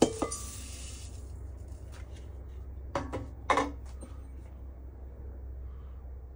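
Cracker crumbs poured from a metal measuring cup into a mixing bowl: a sharp clink, then about a second of dry rushing hiss as the crumbs slide out. About three seconds in come three short knocks of kitchenware, the last the loudest.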